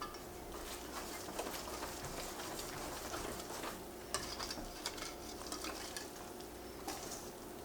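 A kitchen utensil stirring and scraping in a bowl or pan, with scattered light clinks over a steady faint hiss, as pancake batter is mixed or cooked.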